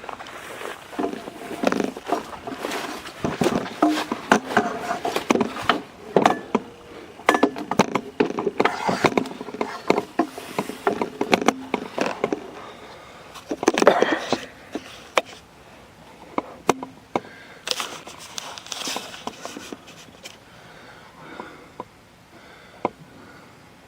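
Irregular clatter of knocks, clicks and scrapes from tools and parts being handled while an alternator is readied for fitting, busiest in the first half.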